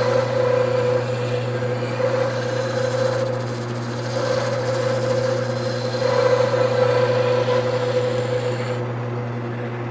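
Wood lathe running with a steady motor hum while a hand-held turning tool cuts the spinning wood, a rough scraping noise that swells and eases.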